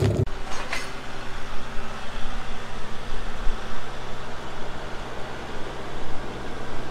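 Pickup truck driving along a dirt track towing an empty flatbed trailer, heard from the cab: a steady low engine hum under rolling tire and road noise.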